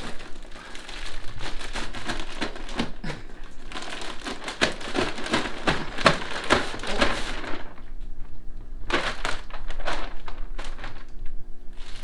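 Clear plastic wrapping crinkling and crackling as it is pulled off a compressed, roll-packed mattress. The crinkling is densest for the first eight seconds or so, then thins to a few shorter bursts.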